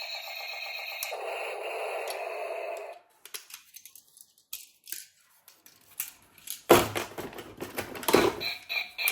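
Background music that cuts out about three seconds in, followed by a series of sharp clicks and rattles of something being handled, the loudest clicks coming near the end.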